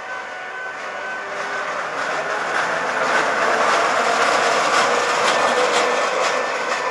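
Two coupled battery-electric locomotives passing at close range. Their steel wheels run on the rails with a steady rolling noise that builds to its loudest midway through and eases slightly near the end, with a few clicks over the track.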